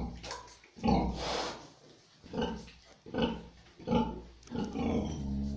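Sow grunting in short low pulses, roughly one a second, while her litter suckles: the rhythmic nursing grunts a sow makes during a feed.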